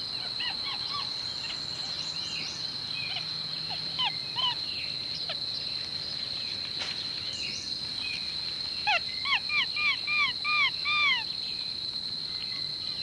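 Black capuchin monkeys giving short chirping calls, a few scattered at first and then a quick run of about seven rising-and-falling chirps near the end. A steady high-pitched insect drone runs underneath.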